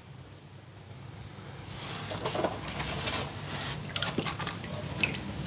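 Water sloshing and splashing in a shallow basin as a hand pushes a small toy car through it, with a few light sharp clicks near the end.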